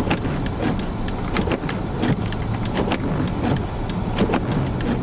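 Car driving, a steady low running rumble and road noise with many irregular small ticks and clicks over it.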